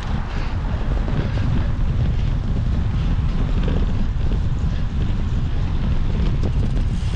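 Heavy wind buffeting on the microphone of a camera carried on a moving cyclocross bike: a steady low rumble with a few faint clicks and rattles over it.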